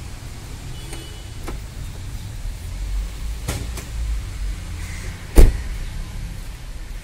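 Car door of a Mercedes ML 350 opened with a couple of sharp latch clicks, then shut with one loud, solid thump about five and a half seconds in, over a low rumble.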